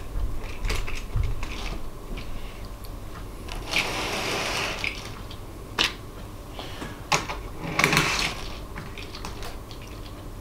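Light clicks and clatter of N-gauge model freight cars being handled and set onto the track by hand, with a scraping rustle lasting about a second around four seconds in and a louder short one near eight seconds.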